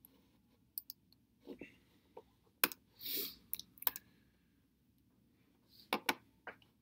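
Scattered sharp clicks from a laptop being clicked through on-screen menus, about half a dozen, irregularly spaced, with a short soft rush of noise about three seconds in.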